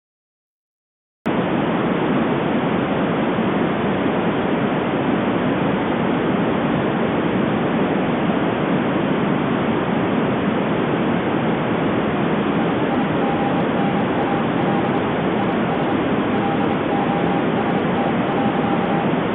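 Portable radio giving out loud, steady static hiss that comes on suddenly about a second in after silence. In the second half a faint tone at one steady pitch comes and goes through the static.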